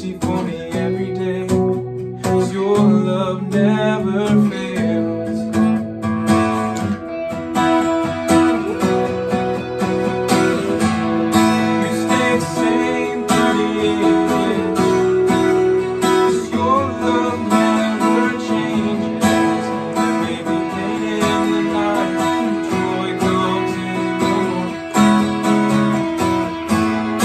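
Worship song: a man sings to a strummed acoustic guitar, with an electric guitar playing alongside.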